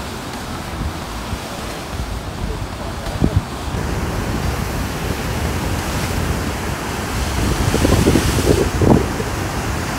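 Ocean waves surging and breaking against a rocky cliff, with wind buffeting the microphone. The surf swells louder about eight seconds in.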